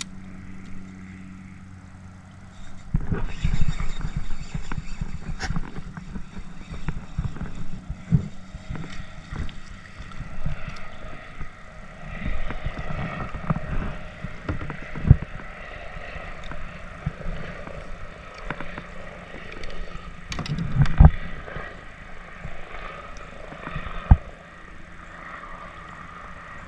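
Irregular bumps and knocks from gear being handled aboard a kayak, beginning about three seconds in, with a few sharper knocks standing out.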